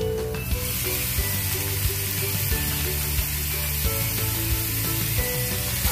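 Pork belly sizzling steadily as it fries in hot butter in a pan, the sizzle getting stronger about half a second in, over background music.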